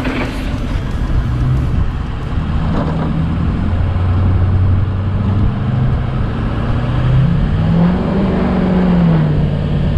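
A vehicle's engine running under way while driving, its engine note climbing and then dropping back around eight to nine seconds in as the revs change.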